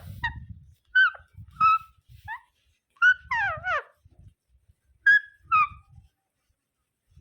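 Indian ringneck parakeet calling: a string of short squawks half a second to a second apart, with a longer pair of wavering, falling calls about three seconds in.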